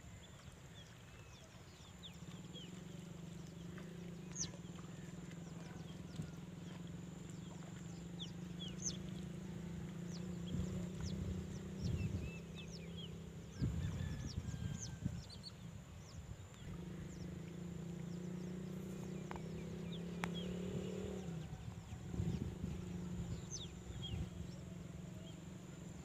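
Birds chirping: many short, faint calls scattered throughout, over a low steady hum that drops out twice. A few low thumps are heard about halfway through and again near the end.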